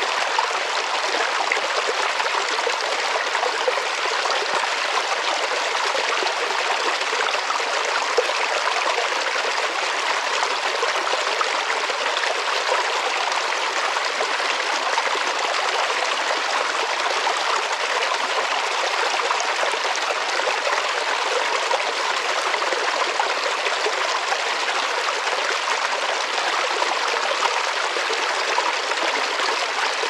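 Small woodland stream splashing down a short rocky cascade: a steady, even rush of water with little deep rumble.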